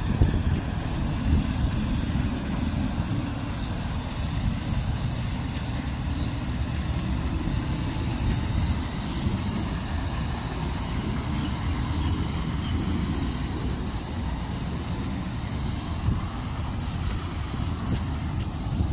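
Wind buffeting the phone's microphone: a steady, low, rumbling noise.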